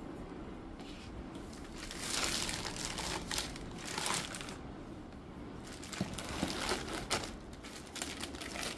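Clear plastic packaging bags crinkling and rustling as they are handled, in two irregular bouts, the second with a few sharp crackles.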